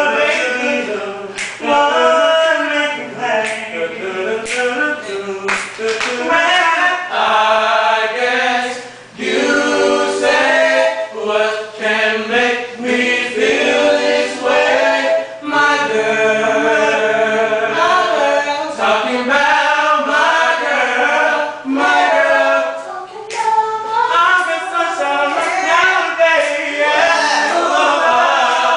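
A small group of students singing a cappella, several voices together with no instruments.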